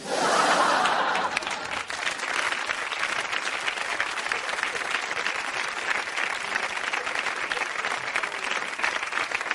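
Live audience applauding, loudest in the first second or so, then steady clapping.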